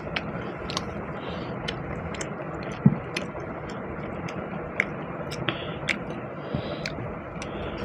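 People eating rice pulao and chicken curry: scattered small clicks and soft wet sounds of chewing and of food and fingers on the plate, with one louder click about three seconds in, over a steady background hiss.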